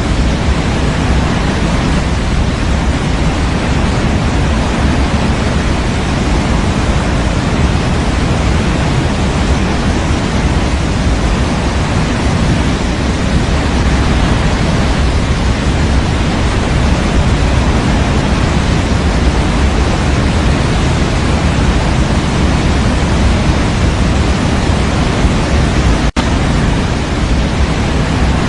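Steady white noise for baby sleep, an even hiss weighted toward the low end like pink noise, with one split-second dropout near the end.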